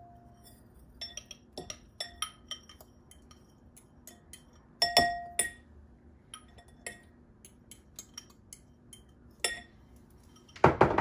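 A metal spoon clinking and scraping against glass mixing bowls as cheese is scraped out of a small glass bowl into a larger one: a run of short, ringing clinks, a louder pair about halfway through, and a loud knock near the end.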